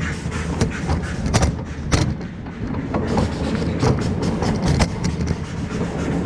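Great Coasters International wooden roller coaster train rolling slowly along the brake run into the station: a steady low rumble of wheels on the wooden track, with frequent irregular clacks and knocks.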